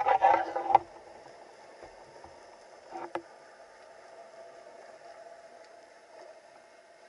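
Underwater water noise: a loud burst in the first second and a shorter one about three seconds in, over a faint steady hiss.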